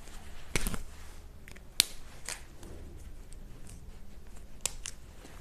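A few small, sharp clicks and taps from a whiteboard marker being handled, spaced a second or so apart, over a faint low room hum.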